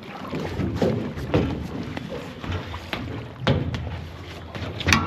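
Irregular knocks and splashing of water around a small open fishing skiff on the water.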